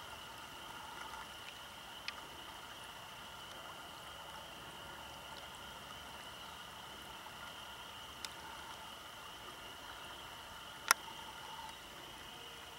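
Water trickling through a beaver's stick dam in a ditch, over a steady high-pitched background chorus. A few sharp clicks cut in, the loudest about eleven seconds in.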